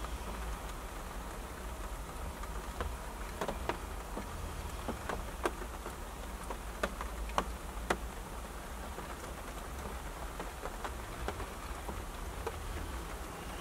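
Raindrops tapping irregularly on a small camper trailer's roof over a steady low rumble.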